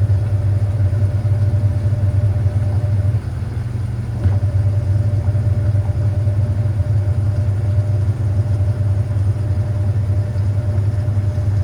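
Hoover 800RL top-loading washing machine in its final spin, running with a loud, steady low hum and a thin higher motor tone. The sound dips briefly about three seconds in.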